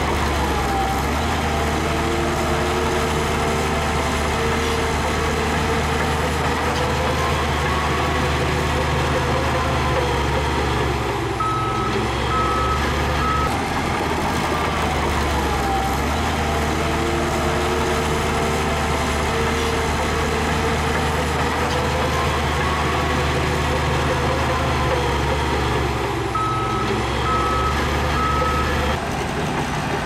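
Heavy diesel earthmoving machinery running steadily, with a whine that rises and falls in pitch. A reversing alarm beeps three times about halfway through and again near the end.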